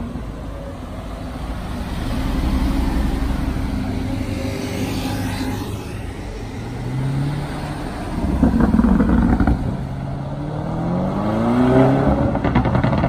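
Cars passing on a city street, their engines running, the loudest about eight to nine seconds in. Near the end one car accelerates hard, its engine note rising.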